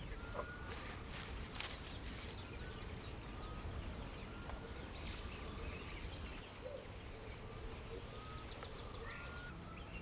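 Savanna ambience: a steady, high-pitched insect drone with scattered short bird chirps.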